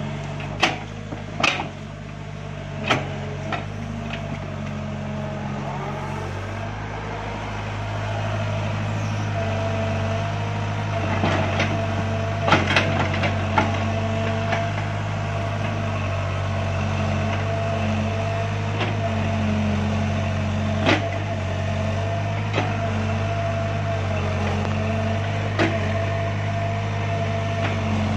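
Hydraulic excavator's diesel engine running steadily with a steady whine over it, working harder from about eight seconds in. Several sharp knocks come through now and then as the bucket and boom work the mud.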